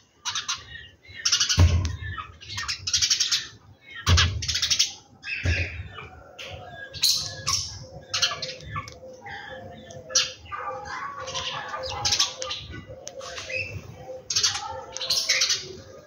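Several birds chirping and calling over one another, many short high calls and quick trills with hardly a break. A few dull low thumps fall in the first half.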